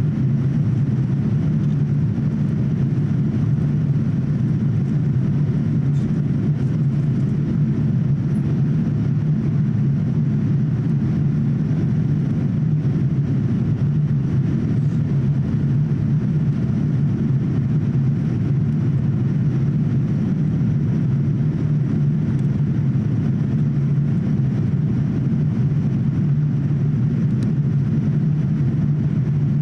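Steady cabin noise of a Boeing 787-8 in flight, heard from inside the passenger cabin: an even, low rumble of its Rolls-Royce Trent 1000 turbofan engines and the airflow over the fuselage, without change.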